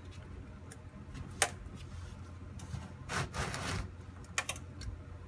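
Scattered metallic clicks and clinks of hand tools working the pan bolts loose on a Turbo 400 transmission, with a short rattle about three seconds in, over a steady low hum.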